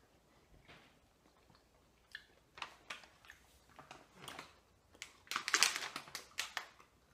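Soft wet chewing of a marshmallow, then a plastic candy bag being handled. The bag crinkles loudest about five seconds in as it is lifted.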